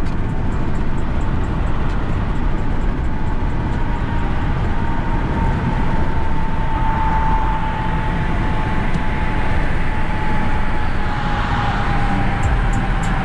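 Car driving at highway speed, heard from inside the cabin: steady engine and road noise, with a thin whine that slides slowly lower in pitch.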